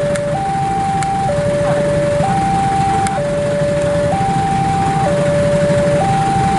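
Electronic two-tone warning alarm of a railway level crossing, alternating between a lower and a higher tone about once a second, with a steady low rumble underneath.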